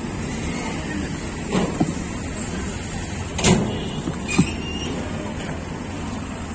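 Steady street noise with a few sharp plastic clacks from handling containers at a street food stall, as a cooler lid is flipped open; the loudest clack comes about three and a half seconds in.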